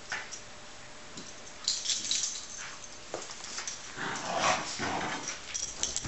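A Yorkshire terrier and a miniature schnauzer play-fighting over a plush toy: growls and scuffling, loudest about four seconds in.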